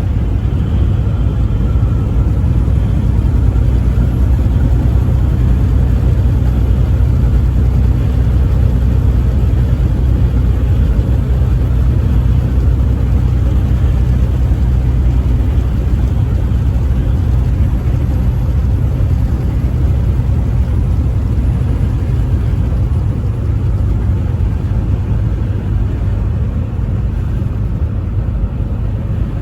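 Truck driving on the interstate at a steady speed: a continuous low engine and road rumble that holds even throughout, with no horn sounding.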